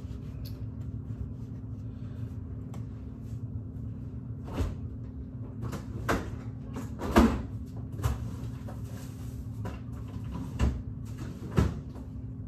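Refrigerator door pulled open and things moved about inside: about half a dozen separate knocks and thumps, the loudest about seven seconds in, over a steady low hum.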